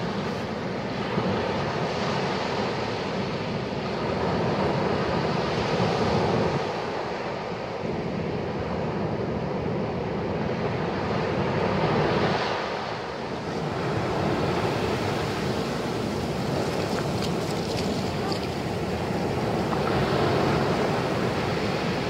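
North Sea surf breaking on a sandy beach: a steady wash of waves that swells and eases every few seconds.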